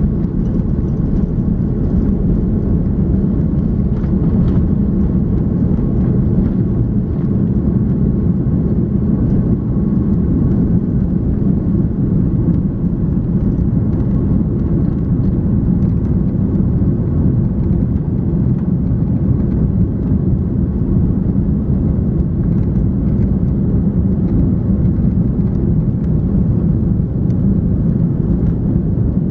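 Steady low rumble inside the cabin of an Airbus A340-300, from its four CFM56 turbofan engines and the airflow around the fuselage.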